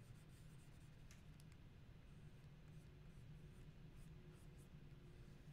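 Faint scratching and light ticks of a stylus nib drawing strokes on a GAOMON PD156Pro pen display, over a steady low hum.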